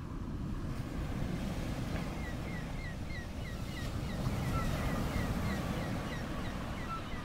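Wind rumbling on the microphone, with a small bird chirping over and over in short, quick notes from about two seconds in.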